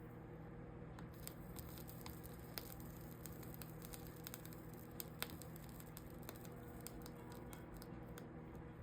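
Faint crackling and scattered small clicks of flux and 60/40 solder melting under a soldering iron along copper-foiled stained-glass seams, over a steady low hum.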